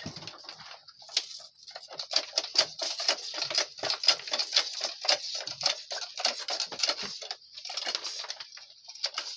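Goats moving through a parasite dip: a quick, irregular pattering and clattering, busiest in the middle and thinning out near the end.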